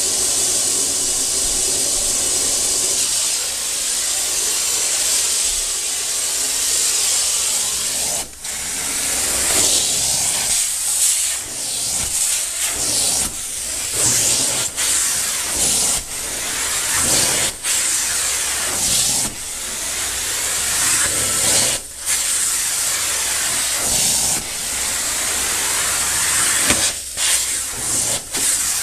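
Carpet-cleaning extractor's detailer hand tool spraying and sucking along the carpet edge: a loud, steady rushing hiss. From about eight seconds in it is broken by brief dips every one to three seconds as the tool is worked in strokes.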